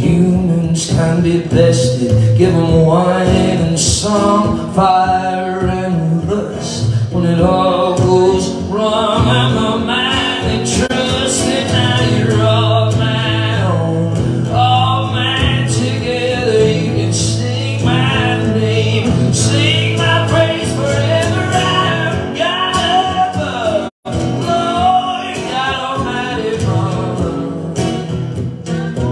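Live acoustic song: two acoustic guitars played under a singer's voice. The sound cuts out for an instant late on.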